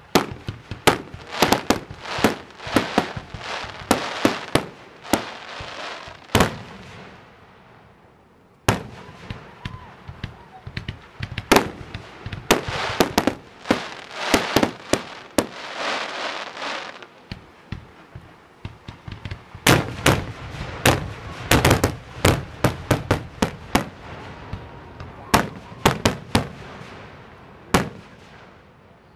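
Aerial fireworks display: rapid volleys of sharp shell bursts, dozens of bangs with dense crackling between some of them. A short lull comes about eight seconds in, and the bursts thin out near the end.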